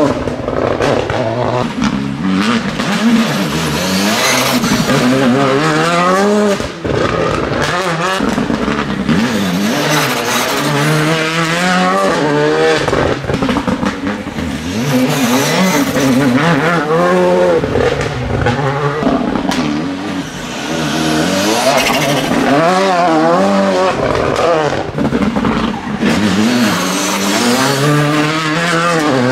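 Rally cars driven hard one after another. Their engines rev up in repeated rising sweeps as they shift up through the gears, dropping back between shifts.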